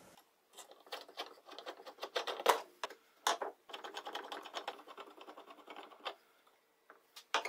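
Screw-in wooden table legs being handled in their metal mounting plates on a particle-board base: irregular scraping and rattling broken by sharp clicks, the loudest a little past two seconds in and again at about three seconds in.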